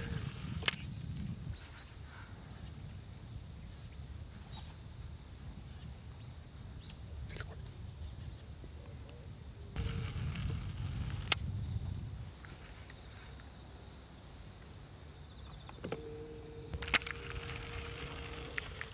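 Steady, high-pitched drone of insects calling, with a few sharp clicks and a low steady hum starting near the end.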